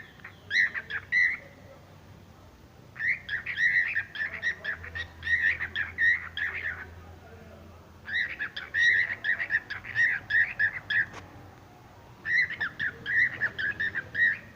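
A bird calling in bouts of quick, evenly repeated squawky notes, each bout lasting a few seconds and broken off by short pauses.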